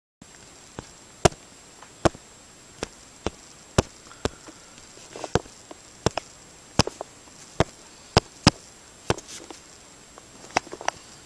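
A series of sharp, irregular clicks or taps, roughly one or two a second, some in quick pairs, over a faint steady hiss with a faint high whine.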